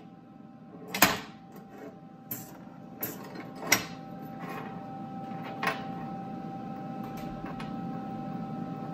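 Sharp metal clicks and knocks as steel pipe fittings and a C-clamp are handled and set on a steel welding table, loudest about a second in and just before four seconds, over a steady low hum.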